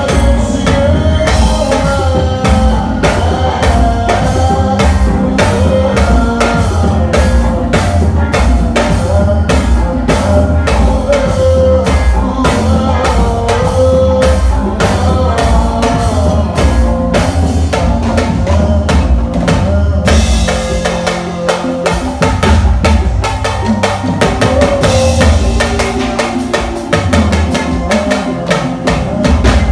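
Live band music led by drum kit and hand percussion over bass, with a melody line above. About two-thirds of the way in the upper parts drop away, leaving mostly drums, percussion and bass.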